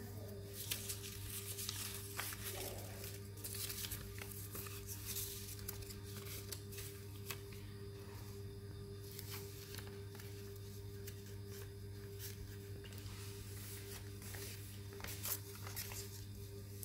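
Paper being handled and rustled, with scattered short crinkles and taps, over a steady low hum.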